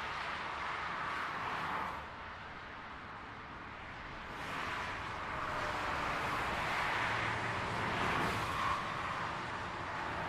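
Highway traffic: a steady rush of tyre and engine noise from passing vehicles, dipping into a lull about two seconds in and building again from about four and a half seconds as more vehicles pass.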